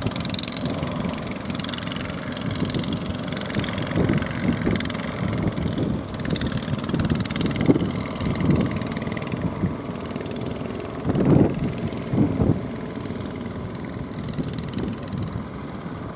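Engines of motorised outrigger fishing boats running as they come in through choppy water, heard as an uneven low rumble that swells and eases, loudest a little past the middle.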